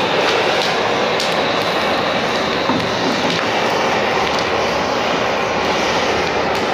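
Handheld gas blowtorch burning with a steady roaring hiss of its flame, played over old laminate to soften the glue so it can be scraped off the plywood.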